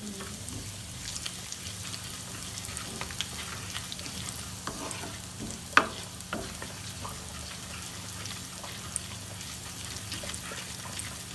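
Cumin seeds sizzling and crackling in hot desi ghee as a tadka (tempering) fries, with scattered small pops and one sharp click about six seconds in.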